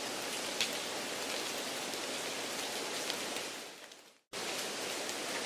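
A steady, rain-like hiss of background noise laid under the test audio to simulate a poor exam-room sound system. About four seconds in it fades to silence and then cuts back in abruptly.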